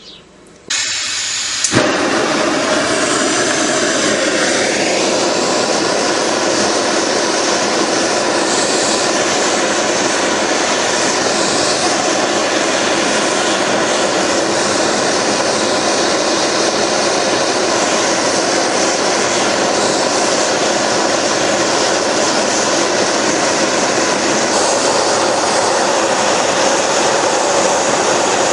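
Bottle-fed gas soldering torch with a pressure reducer: a hiss starts under a second in, a sharp pop follows at about two seconds as it lights, then the flame burns steadily with a loud, even rushing noise while it heats a crucible to melt metal.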